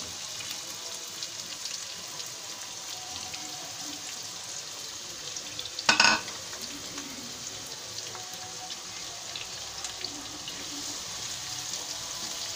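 Chopped onions sizzling in hot oil in a frying pan as they are stirred, a steady frying hiss. About halfway through there is one brief, loud, ringing clank.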